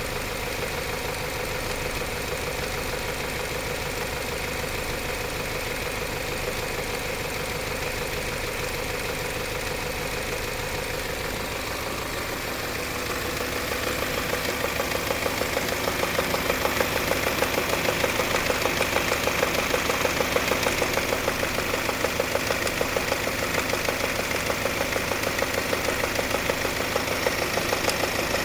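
Subaru CB18 1.8-litre turbocharged boxer engine idling after a cold start, with a fast, even tapping knock over the running sound. The owner takes the knock for parts striking each other and wearing metal while the engine is cold. The recently replaced high-pressure fuel pump also clatters like a diesel. The sound grows louder about halfway through.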